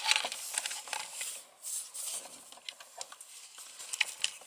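Handling noise of a small robot car kit: jumper wires and a USB cable rustling and plastic parts clicking as the cable is routed to the Raspberry Pi, with a few sharp ticks near the end.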